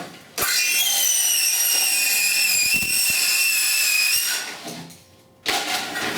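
A circular saw starts about half a second in and runs at a steady high pitch for several seconds while cutting an angle through vinyl siding, then winds down. A loud burst of clattering noise follows near the end.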